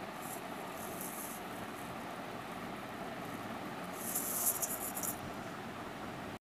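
Faint scraping of a metal palette knife spreading whipped cream over a cake, in short strokes near the start and more strongly about four seconds in, over a steady low hiss. The sound cuts off suddenly just before the end.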